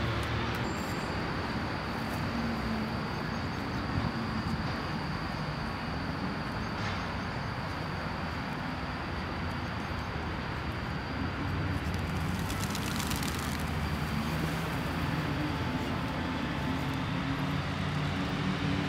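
Steady road traffic noise: a continuous rumble of passing cars with a low hum that swells and fades.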